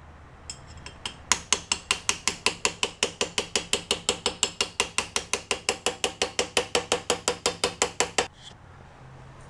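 Hammer rapidly tapping on a brass rod to drive a steel bearing race into its housing: a steady run of sharp metallic taps, about six a second, that stops near the end.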